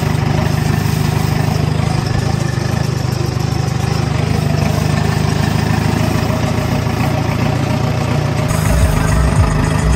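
Mahindra Arjun tractor's diesel engine running steadily while the tractor drives along towing a seed drill. Uneven low thuds join in near the end.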